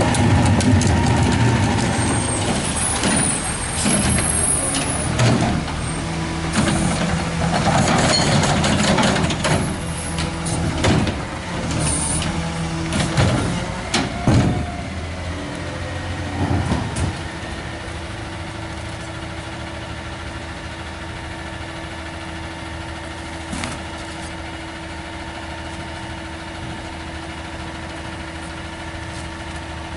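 Compressed-natural-gas engine of an AutoCar ACX garbage truck running as the truck works and pulls forward, with clanks and hisses over the first half. About 17 seconds in it settles into a steady idle.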